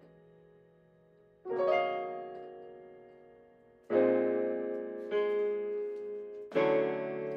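Digital keyboard played with a piano sound: four slow chords, the first about one and a half seconds in, each struck and left to ring and fade.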